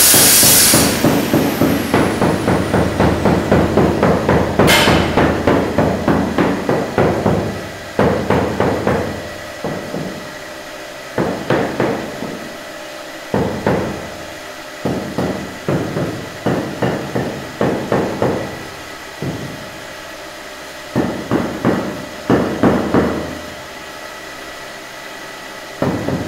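Butt end of a wooden hammer handle tapping a 2x2 ft floor tile to bed it into the mortar and level it: quick knocks, about three a second, in a steady run at first and then in short groups with pauses. A brief hiss-like noise sounds at the start and again around five seconds in.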